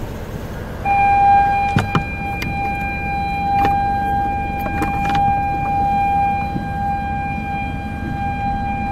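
Fishing reel drag screaming as a hooked fish takes line: a steady high whine that starts about a second in and holds its pitch, with a few sharp knocks over a low rumble of wind and water.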